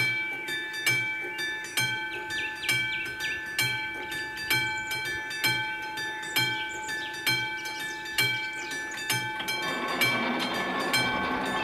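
Level-crossing warning bell of a classic AŽD 71 signal striking steadily about once a second, each stroke ringing on. From about ten seconds in, a rumble of an approaching train rises under the bell.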